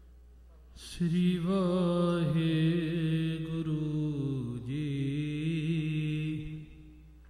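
A voice singing one long, wavering devotional chant note. It starts about a second in, holds for about five seconds and fades out near the end.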